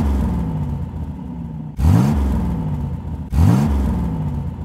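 Car engine revved in three sharp blips about a second and a half apart, each rising quickly in pitch and then settling back down.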